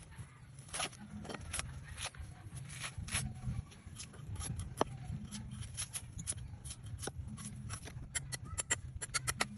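Coconut husk being cut and peeled with a knife: a run of sharp cracks and tearing scrapes, coming closer together near the end, over a low steady rumble.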